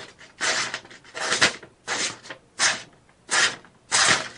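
A sharp tomahawk blade slicing through a sheet of paper held in the hand, about six quick strokes, each a short crisp rasp of cut paper. The clean cuts show an edge sharpened to shaving sharpness.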